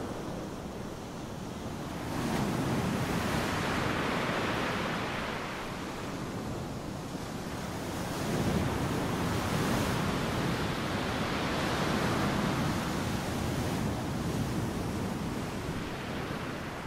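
Ocean surf: a steady rush of breaking waves that swells and ebbs every few seconds.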